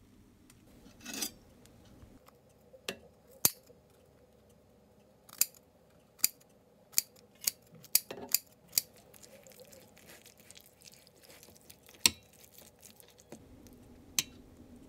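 Metal spoon clinking and scraping against a stainless steel mixing bowl while stirring flour into chopped vegetables: about a dozen sharp clinks, with a quick run of them in the middle, and a softer rustle about a second in.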